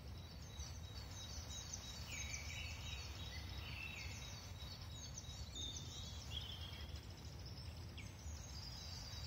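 Several birds singing at dawn, a mix of short high chirps, quick falling notes and trills overlapping throughout, over a steady low rumble.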